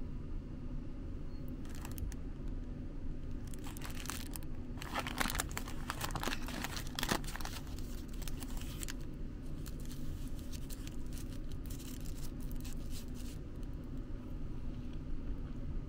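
Plastic snack wrapper being handled and torn open, crinkling in a run of rustles that are loudest about four to seven seconds in, over a steady low hum.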